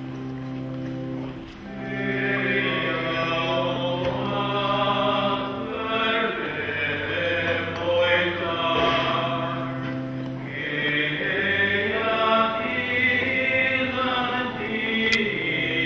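Church choir singing a hymn over long held low accompaniment notes that change every few seconds; the singing grows louder about two seconds in.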